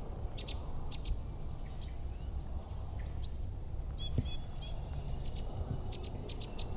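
Songbirds calling in the background: short high chips in quick groups of two to four, with a few down-slurred notes, over a low steady rumble. A single soft knock about four seconds in.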